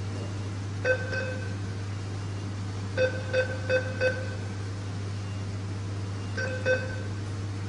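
ATM keypad beeping as buttons are pressed: two short beeps about a second in, a quick run of four a couple of seconds later, and two more near the end, over a steady low hum.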